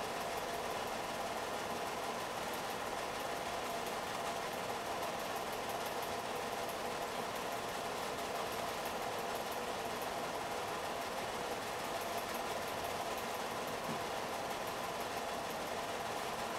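Home-movie film projector running steadily, a constant mechanical whir with a faint fast ticking.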